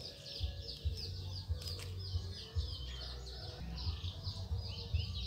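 Small birds chirping in a dense run of short, high, quickly repeated notes, over a low uneven rumble of wind or handling on the microphone.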